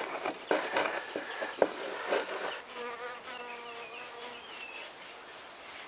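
Scattered clicks and rustles of handling. About halfway through comes a steady buzzing for about two seconds, with short high chirps repeating over it.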